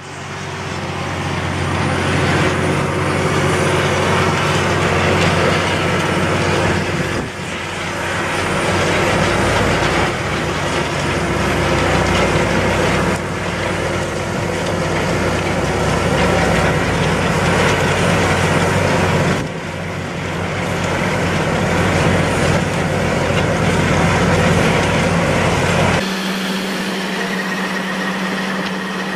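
Large four-track tractor's diesel engine running steadily under load while pulling a disc tillage implement. About three seconds before the end this gives way abruptly to a different steady mechanical hum, heard with a grain auger filling a truck.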